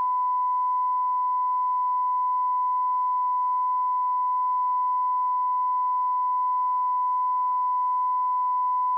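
A steady, pure electronic test tone held at one pitch without a break: a television line-up tone.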